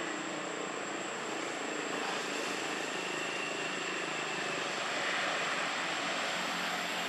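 Steady outdoor background noise: an even hiss with a constant high-pitched whine over it and no distinct events.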